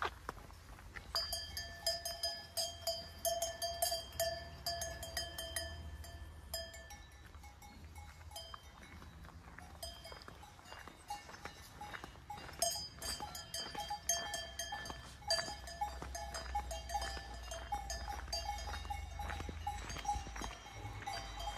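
Several livestock bells clanking at irregular moments, their ringing tones overlapping. The clanking thins out for a few seconds in the middle, then picks up again.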